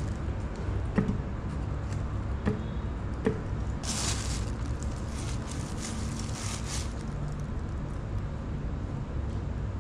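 A few light knocks as cut cantaloupe pieces drop into a plastic blender jar, then about three seconds of crisp scraping strokes as a kitchen knife cuts through melon rind and flesh, over a steady low hum.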